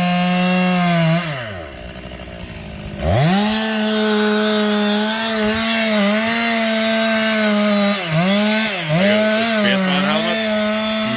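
Stihl two-stroke chainsaw running at full throttle, dropping toward idle about a second in, then revved back up about three seconds in and held high. Its pitch sags briefly several times in the later part as the chain takes load in the wood, and it falls away again at the end.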